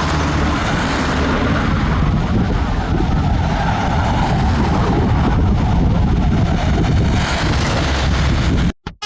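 Road vehicle, most likely a large tour bus, passing close by: a steady engine and road rumble, with wind buffeting the microphone.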